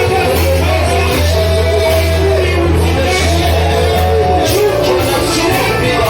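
Worship music with long held bass notes under several voices singing and calling out.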